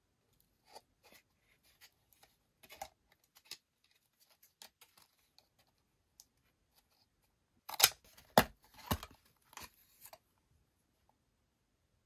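Toy blister packaging being torn open: a hard plastic capsule pulled off its cardboard backing card. Scattered light clicks and rustles, then a burst of sharp tearing and cracking sounds about two-thirds of the way in.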